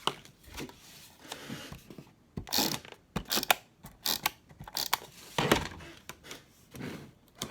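Irregular crinkling, rustling and clicking of hands handling and trimming paper pieces and tape.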